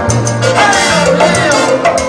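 Live salsa band playing, with trombone and trumpets.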